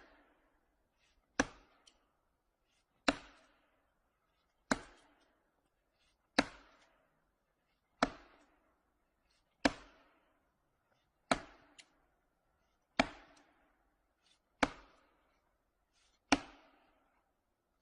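Eleven sharp, heavy blows struck on wood by hand at a slow, even pace, about one every second and a half, each with a short fading ring, as in chopping.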